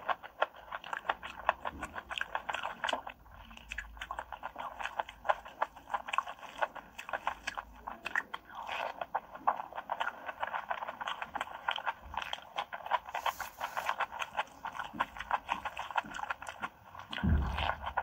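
Close-miked eating: wet chewing and lip-smacking of a mouthful of curry, chicken and rice, a rapid, irregular run of sticky clicks. A low thump comes near the end.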